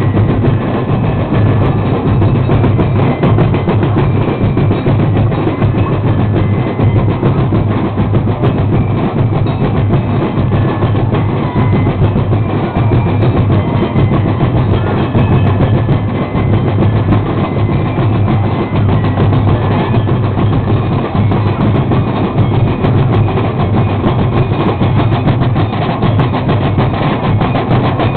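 Loud live percussion, drums pounding out a continuous dense street-dance beat.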